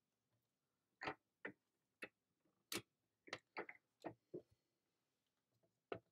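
Clear stamp on an acrylic block tapped onto an ink pad to ink it: a string of light, sharp clicks, irregularly spaced, about a dozen in five seconds.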